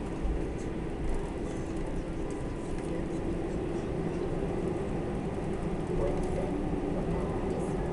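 Steady low rumble and hum inside an airliner's cabin as it taxis after landing, with a faint thin tone held above it.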